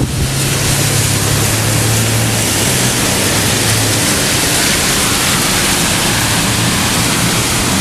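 Steady, loud rush of wind-driven heavy rain and storm wind, with a low hum underneath for the first half that fades out.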